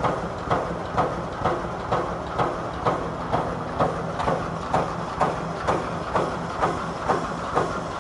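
Pneumatic poultry-cage mesh welding machine running at speed. Its electrodes clamp and weld a cross wire with a regular clack about twice a second, roughly 128 strokes a minute, over a steady hum.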